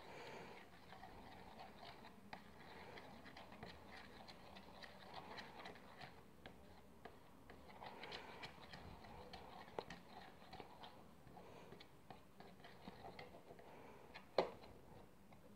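Faint sound of a stick stirring glue and liquid detergent in a bowl to make slime: scattered light clicks and taps, with one louder knock near the end.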